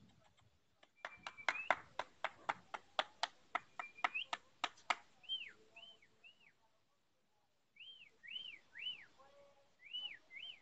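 A quick run of sharp clicks, about four a second, followed by short high whistled chirps that each rise and fall, several in a row near the end.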